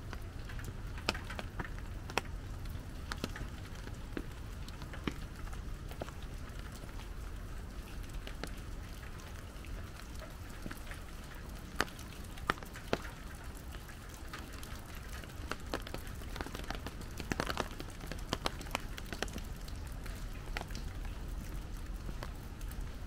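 Light rain falling, with many irregular drops and drips ticking sharply close by, over a steady low rumble.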